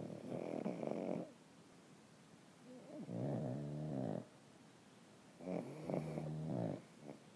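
Pugs snoring: three long snores of about a second each with quiet breaths between, the later two with a pitched, whistling tone.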